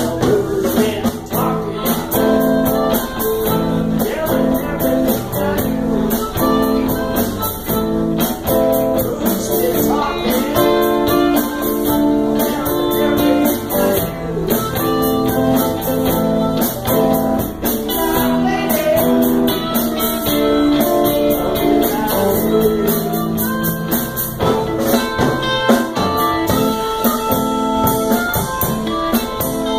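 Live blues band playing: electric guitars over a drum kit, with a singer at the microphone.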